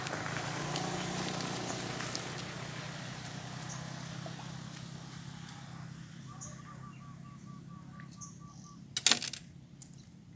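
Outdoor ambience with a rush of noise that slowly fades. Past the middle a bird gives a rapid run of short, same-pitched chirps, about five a second, for a couple of seconds. Near the end comes a sharp double knock.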